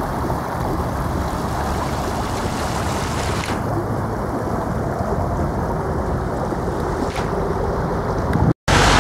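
Muddy floodwater rushing steadily down a swollen wadi channel, with wind buffeting the microphone. The sound cuts out briefly near the end.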